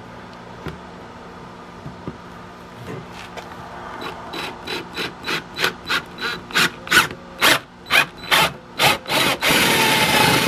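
Cordless 18-volt drill boring into the plastic deck of a kayak: the cutting comes in strokes about three a second that grow steadily louder, then the drill runs steadily near the end.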